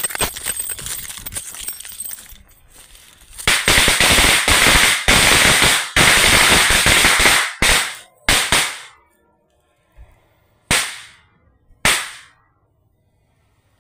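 Cut length of a higad firecracker string going off in rapid crackling bangs. The crackle thins out after about two seconds, comes back louder in a dense run of about four seconds, then ends in a few separate bangs.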